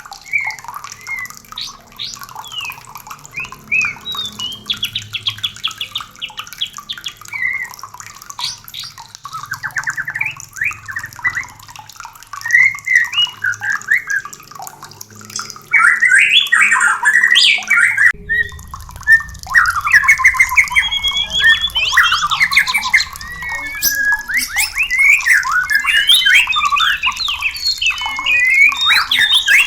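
White-rumped shama song: a varied run of whistled phrases and fast trills. About 18 s in it breaks off, and louder, denser song follows.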